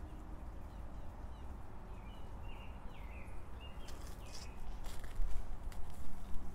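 A few small birds chirping over a low outdoor rumble, then footsteps crunching over hail-strewn ground from about four seconds in.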